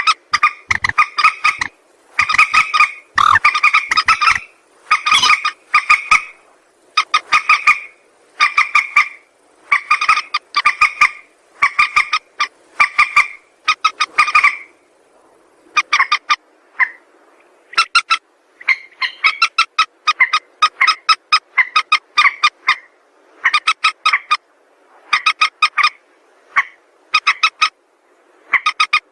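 Mandar sawah, a rail, calling: short bursts of rapid, rattling notes repeated about once a second, with a brief lull about halfway through.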